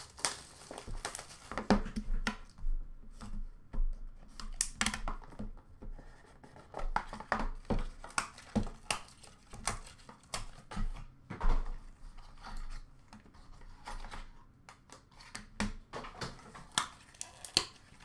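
Hands unwrapping and opening a sealed hockey card box: the plastic wrap tears and crinkles, and the cardboard box and lid scrape and tap, in many short, scattered rustles.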